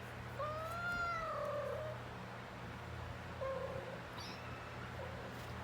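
A domestic cat meowing while it defecates: one long drawn-out meow that rises and falls, then a shorter meow about three seconds in and a faint one near the end.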